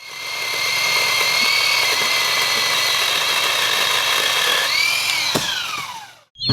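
Bauer 20V cordless chain saw's electric motor running with a steady high whine, then about five seconds in rising briefly before winding down in pitch and stopping.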